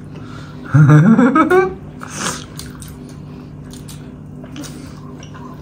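A short vocal sound rising in pitch about a second in, then a brief noisy breath, then quiet mouth and chewing noises over a steady low hum.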